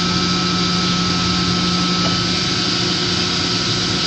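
Steady drone of running machinery in a mechanical room, with a constant low hum and a faint high steady tone above it.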